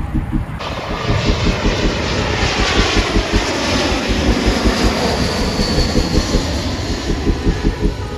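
Airbus A320 jet airliner flying past, its engine noise swelling loud with a high whine that slowly falls in pitch as it goes by.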